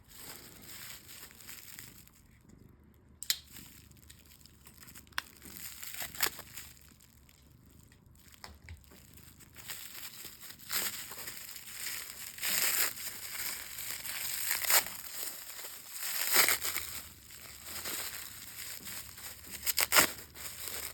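Packaging crinkling and rustling as a parcel is unwrapped, with scattered sharp clicks, getting busier and louder about halfway through.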